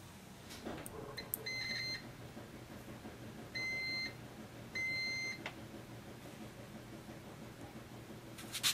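Multimeter beeping three times in continuity test as its probes touch the sprayer pump's connector pins: each beep a short steady tone of about half a second, showing a closed circuit. Light clicks of the probes between beeps, and a sharper clatter near the end.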